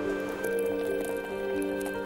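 Background music with held, sustained notes that change pitch every half second or so.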